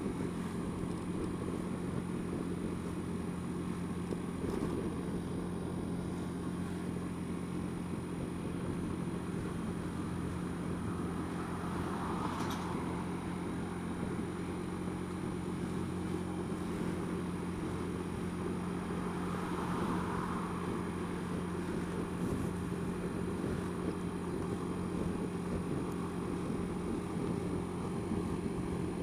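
Honda Dio scooter engine running at a steady pitch while riding, heard from the scooter itself over road and wind noise.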